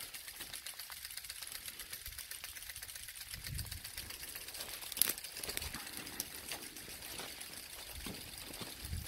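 Overhead frost-protection sprinklers running in an avocado orchard: a steady hiss of spraying water with a rapid, even ticking throughout, one sharper click about halfway, and a few low thumps.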